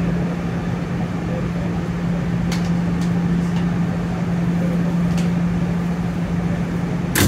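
Steady hum of an R211S subway car's ventilation and onboard equipment while the train stands at a station, with a constant low tone. A few faint clicks, then a sharper click near the end.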